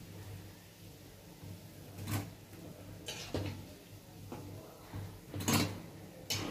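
A metal slotted spoon knocking and scraping against an iron kadai while fried fritters are lifted out of the oil: about five separate clinks, the loudest near the end.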